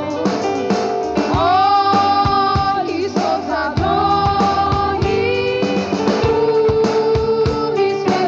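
Gospel worship song: sung voices holding long, wavering notes over a band with guitar and a steady drum beat.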